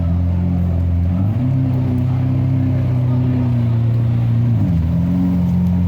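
Lamborghini Aventador's V12 engine running. Its pitch rises about a second in, holds steady for about three seconds, then drops back down near the end.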